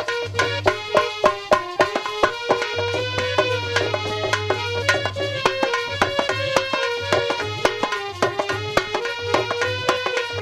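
Instrumental break in a Hindi devotional bhajan: fast, regular hand-drum strokes under a melody instrument playing the tune over a low sustained bass.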